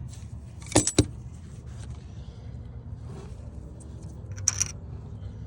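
Two sharp metal clanks about a second in, then a brief metallic jingle near the end: the freshly removed crank hub and the harmonic balancer puller being handled.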